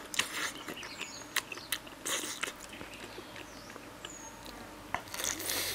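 Close-up mouth sounds of eating braised pig trotter: chewing and lip-smacking with scattered small clicks and three short breathy bursts.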